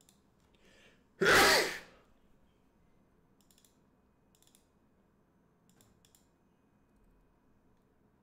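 A man sneezes once, loudly, after a short intake of breath. A few light computer-mouse clicks follow.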